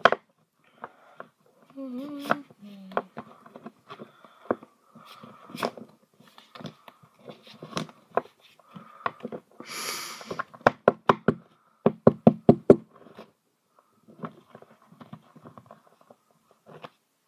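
Trading cards and their packaging handled right at the microphone: scattered knocks and taps, a short rustle about ten seconds in, then a quick run of sharp clicks.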